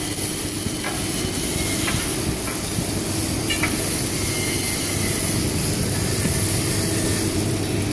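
Hydraulic CNC press brake's pump unit running, a steady hum with an even hiss over it.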